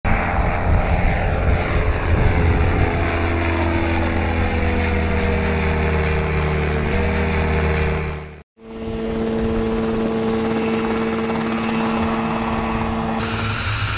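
Orion unmanned aircraft's propeller engine running at take-off, a steady hum whose pitch glides down as it passes. It cuts off abruptly after about eight seconds, and a second steady engine hum follows from an unmanned helicopter in flight.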